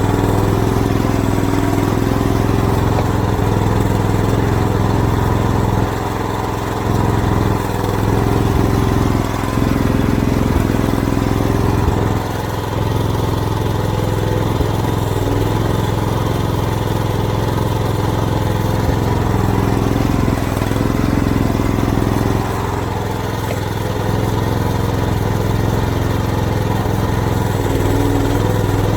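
Small engine of an AGT mini excavator running steadily, with its level dipping briefly a few times.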